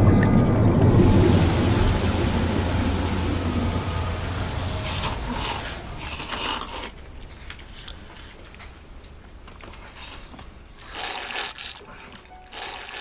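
A low rumbling swell that fades away over the first few seconds, then noisy slurping of ramen noodles and broth from a bowl: one run about five seconds in and two more near the end.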